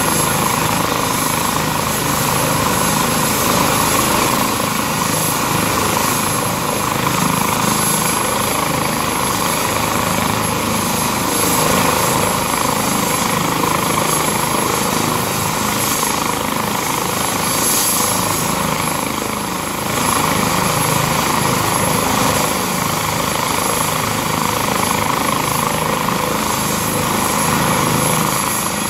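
Airbus H135 air-ambulance helicopter running on the ground with its rotor turning ahead of take-off: a steady turbine and rotor noise with a thin high-pitched whine.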